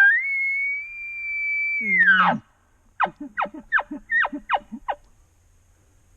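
Elk bugle: a high whistle held for about two seconds, which drops into a low grunt and is followed by about six quick falling chuckles.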